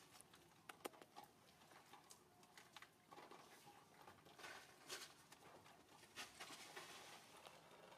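Near silence: faint outdoor ambience with a scattering of small, short clicks and ticks.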